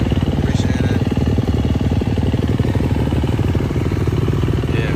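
Dirt bike engine idling steadily, a rapid, even firing beat with no revving.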